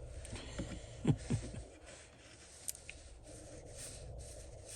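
Faint rubbing and light scraping of fingers working fine stranded wire, with a couple of short, sharp knocks about a second in.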